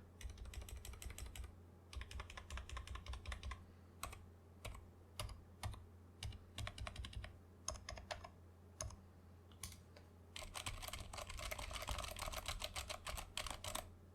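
Typing on a custom GK68XS 65% mechanical keyboard with Kailh Box Silent Brown switches and XDA-profile PBT keycaps. It opens with a fast run of keystrokes, then slower single key presses, then another fast run that stops just before the end.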